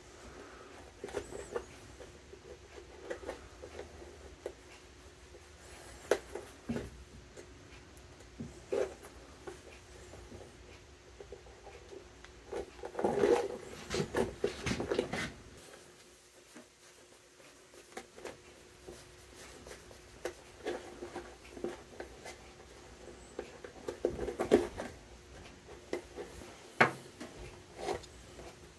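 Hand-stitching a leather boot welt with a stitching awl: scattered clicks and rubbing as the awl pierces the leather and the thread is drawn through, busiest about halfway through and again near the end.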